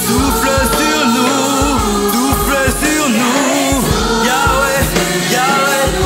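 Gospel worship song: a male lead singer sings a sustained, bending melody over a drum kit with regular kick-drum beats.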